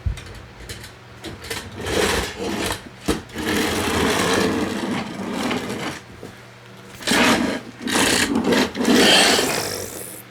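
A remote-control T. rex toy's motor and plastic gears whirring and grinding as it walks, in two stretches with a short pause between them.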